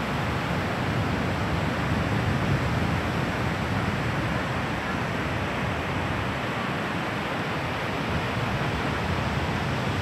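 Steady rushing noise of wind and ocean surf on an open beach, with no distinct events.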